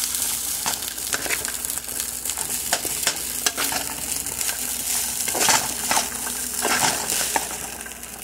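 Fried rice sizzling in a hot pan as a metal spoon stirs and tosses it, with repeated scrapes and knocks of the spoon against the pan. It grows quieter near the end.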